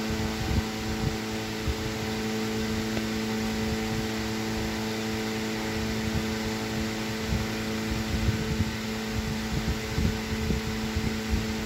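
Antique Century 16-inch electric fan running steadily: a motor hum under the rush of air from the blades, with uneven low rumbling beneath. It runs well.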